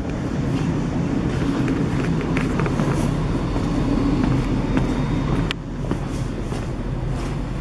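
Low rumble of a motor vehicle in city traffic, which drops away suddenly with a sharp click about five and a half seconds in.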